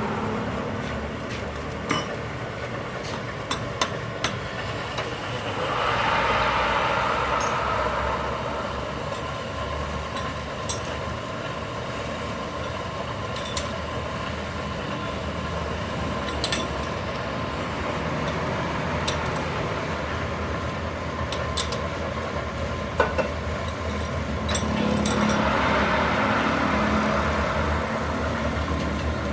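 Steady machine running noise with scattered light metal clinks and taps; the running sound swells twice, about six seconds in and again near the end.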